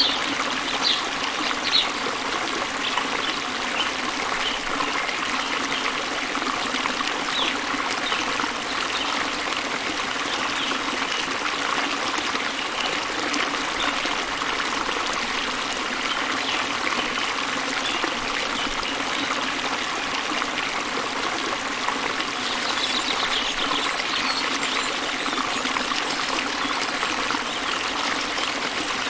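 Waterfall and stream: water running and splashing steadily.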